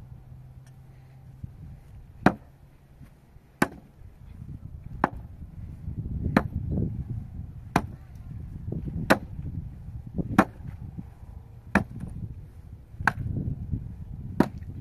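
Axe chopping wood: a steady run of about ten sharp blows, a little over a second apart, starting about two seconds in.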